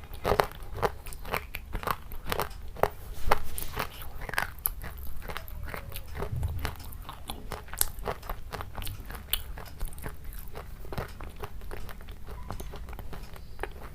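Close-miked mukbang eating: a person biting and chewing food, with many quick, irregular crunchy clicks and wet mouth sounds.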